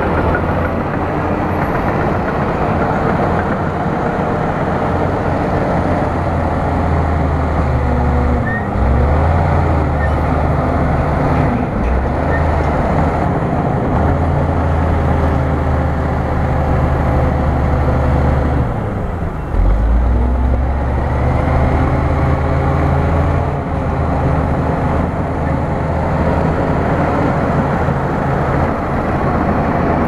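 Bulldozer's diesel engine running steadily. Its note dips and climbs back twice, about nine and twenty seconds in.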